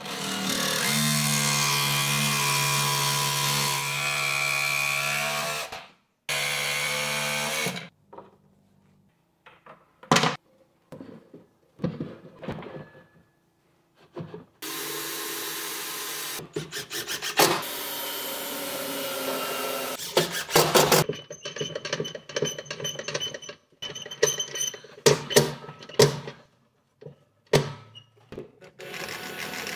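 Makita 18 V cordless jigsaw cutting a wooden sheet, running steadily for about six seconds, then a second short burst. Then come scattered wooden knocks, about six seconds of another steady tool run, and a string of clicks and knocks near the end.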